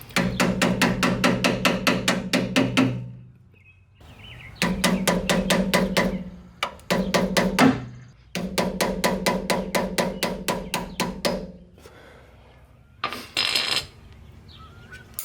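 Power tool running in three bursts of about three seconds each, with a steady motor hum and an even, rapid clicking about six times a second, then a short final burst near the end.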